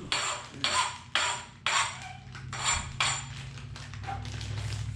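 A hand file rasping over the freshly sawn edge of an aluminium fork steerer tube, deburring and rounding the cut, in about seven strokes roughly two a second that stop after about three and a half seconds.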